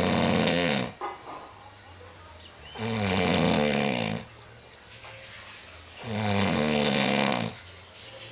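A man snoring heavily in deep sleep, one long rasping snore about every three seconds: one is fading at the start, and two more follow a few seconds apart, with quiet breathing between them.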